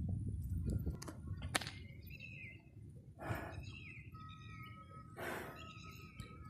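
Birds chirping with short repeated calls, over low rumbling wind or handling noise in the first second or so. Two short breathy hisses come about three and five seconds in.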